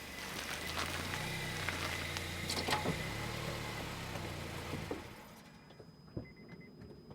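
Car engine running steadily at low revs, with scattered clicks and knocks over it. The engine sound stops about five seconds in, leaving a few faint clicks.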